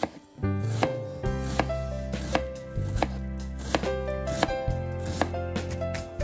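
Santoku-style kitchen knife chopping a red onion on a wooden cutting board: separate sharp knocks of the blade on the board, about one or two a second. Background music with a steady bass line plays under it from about half a second in.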